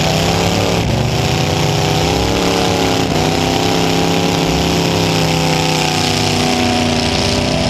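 Demolition derby car's V8 engine running hard under the onboard camera, its pitch dipping sharply about a second in and again about three seconds in, then picking back up as the throttle is worked.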